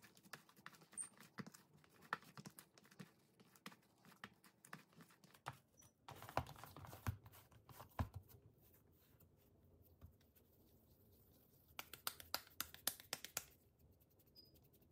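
Faint, scattered clicks and light knocks, with a denser run of quick taps about twelve to thirteen and a half seconds in.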